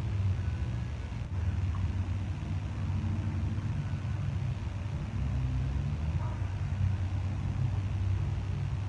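Steady low rumble of outdoor background noise, wavering slightly in level.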